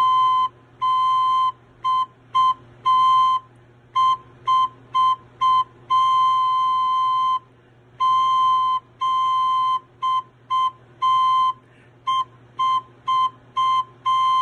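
Soprano recorder playing the note C over and over on one steady pitch. The rhythm mixes short and long notes with brief gaps between, and the last note is held.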